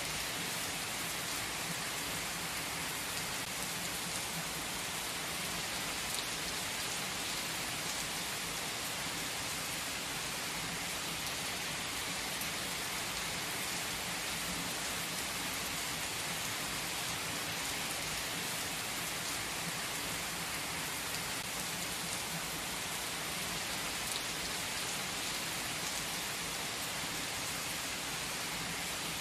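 Heavy rain pouring down onto wet asphalt, a steady, even hiss of countless drops splashing on the pavement with no let-up.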